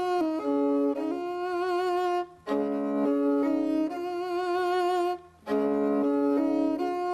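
Kobyz, the Kazakh two-stringed bowed fiddle, playing a kui melody: sustained bowed notes with vibrato, often two sounding together, in phrases broken by short pauses about two and a half and five seconds in.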